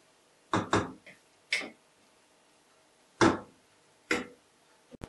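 Wooden spatula knocking against the sides of a metal cooking pot while stirring rice: about half a dozen sharp, irregular knocks, the loudest a little past the middle.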